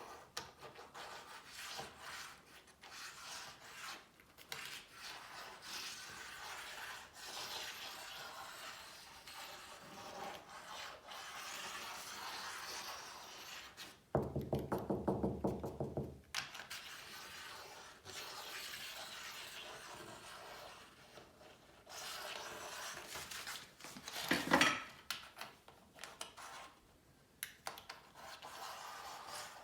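A small rare-earth magnetic stud marker scraping and rubbing as it is slid across a wall in search of a nail, with a brief buzzing rattle about halfway and a single sharp knock later on.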